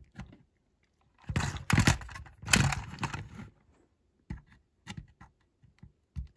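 Power drill boring into a rivet on the baseplate of a die-cast toy car: about two seconds of the bit grinding and chattering on the metal, followed by a few faint clicks.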